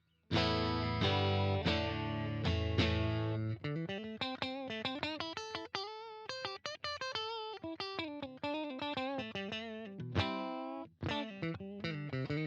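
JCraft LSX-1 electric guitar with humbucker pickups, played unaccompanied: a few strummed chords, then a single-note lead line with bends and vibrato, then chords again near the end.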